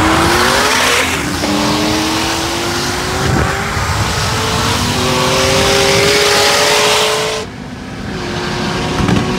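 Car engines at full throttle in a highway race, their pitch climbing steadily and dropping at gear changes about one and a half and five seconds in. About seven and a half seconds in the throttle is lifted and the sound falls to a lower, steadier drone. Heavy wind and road noise throughout, heard from inside a following car.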